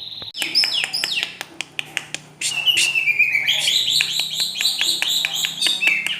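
Long-tailed shrike (cendet) singing a fast, varied song of chirps and clicks, with a falling trill about halfway through and then rapid repeated high notes.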